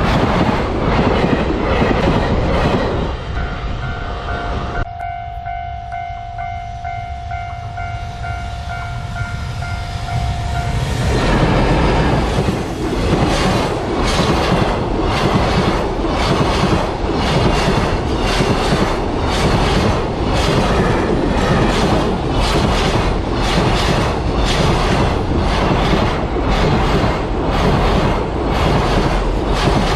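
A level crossing warning bell rings with a steady, repeating tone. Then a long train rolls through the crossing, its wheels clattering over the rail joints in an even rhythm of about one and a half knocks a second.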